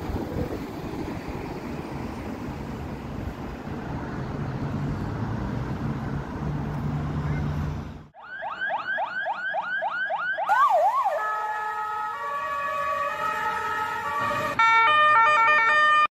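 Motorway traffic and wind noise with a low engine hum for about eight seconds. Then a sudden cut to a clean electronic siren effect: quick rising sweeps, about four a second, and two rise-and-fall wails. After that comes a short jingle of stepped synthesized tones, loudest near the end, which stops abruptly.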